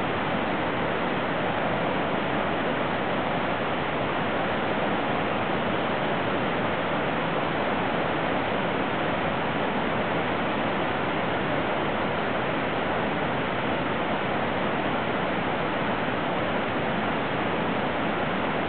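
Flowing water rushing steadily, an even rushing noise without a break.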